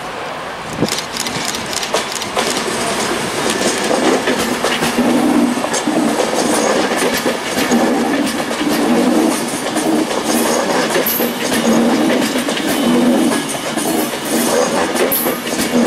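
Passenger train running past close by, its wheels clattering over the rail joints in a repeating rhythm, louder from about four seconds in as the carriages go by.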